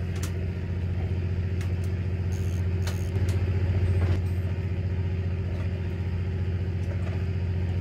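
Fishing boat's engine running with a steady low drone that swells a little midway, with a few scattered knocks and clicks over it.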